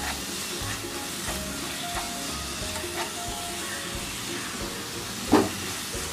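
Spatula stirring and scraping thick carrot halwa in a nonstick kadai, the freshly added ghee sizzling, with small clicks as it turns the mass. A single sharp knock about five seconds in.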